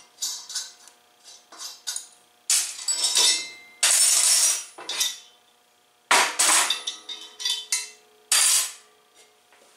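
Metal parts and hand tools clanking and clinking on a steel workbench as the bolts come out and the stainless turbo flange is taken off its aluminum purge block. There are several loud clanks, each followed by a short metallic ring.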